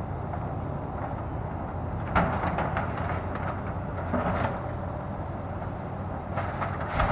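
Komatsu hydraulic excavator's diesel engine running steadily while it tears into a house, with crashes of breaking structure and falling debris: a loud one about two seconds in, a cluster around four seconds, and another loud one near the end.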